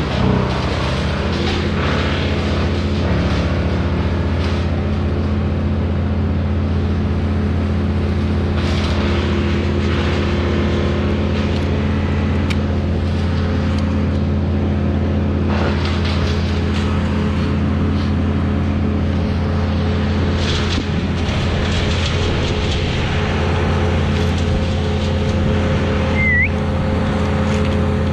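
An engine running steadily at one constant speed, a continuous drone that neither revs up nor drops.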